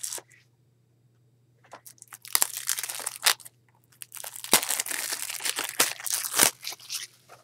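Plastic shrink-wrap being torn and peeled off a Blu-ray case, crinkling in two stretches: one about two seconds in and a longer one from about four seconds to near the end.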